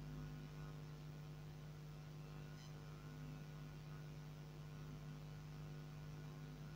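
Faint steady electrical hum with a light hiss, a low droning tone with a few overtones, and a faint tick about two and a half seconds in.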